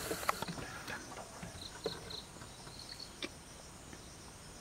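An insect, cricket-like, chirping in short rapid high trills a few times, with a few faint scattered clicks.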